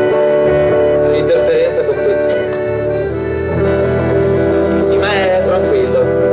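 Live folk band playing an instrumental passage: accordion holding sustained chords over strummed guitars, with a snare drum beaten with sticks.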